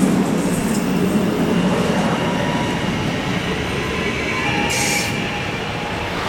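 Passenger train running past on the track: a steady, loud rumble of wheels on rail with faint high squealing tones from the wheels, and a brief hiss about five seconds in.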